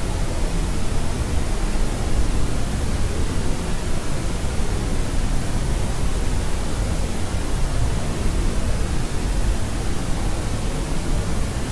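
Steady, unbroken white noise of the kind played to soothe a crying baby to sleep, weighted toward the low end so it sounds deep and rushing rather than hissy.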